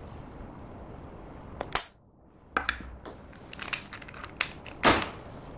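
Black plastic lipstick case handled and opened: a string of sharp plastic clicks and taps, with a loud click just under two seconds in and the loudest near the end, over a low steady hiss.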